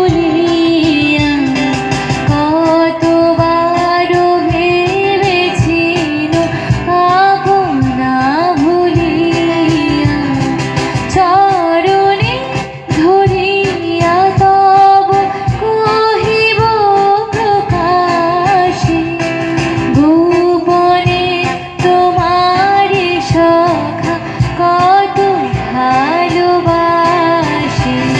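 A woman singing a Bengali song live into a microphone, accompanied by two strummed acoustic guitars.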